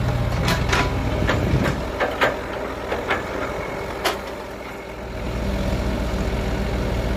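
Sumitomo tracked excavator's diesel engine running, easing off about two seconds in and building back up about five seconds in, with a scatter of sharp knocks from the machine working.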